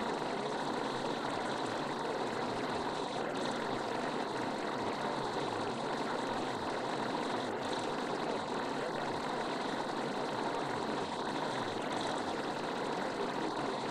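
Steady, unchanging rushing noise of a subliminal masking track, with a faint brief hiss recurring about every four seconds.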